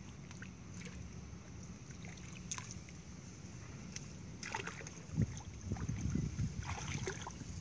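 Wind rumbling on the microphone, with muddy water sloshing and splashing in a dug hole as feet and a pipe are worked in it, the splashing louder and more irregular from about five seconds in.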